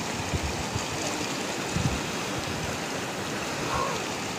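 Shallow, fast river running over stones: a steady rush of water.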